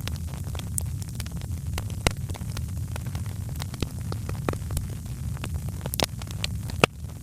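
Wood fire crackling in a fireplace: irregular sharp pops and snaps over a steady low rumble, with a few louder pops along the way.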